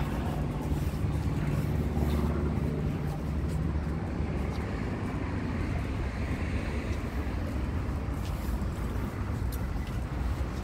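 Outdoor road traffic noise: a steady low rumble, with a vehicle engine humming close by for the first few seconds before it fades into the general traffic.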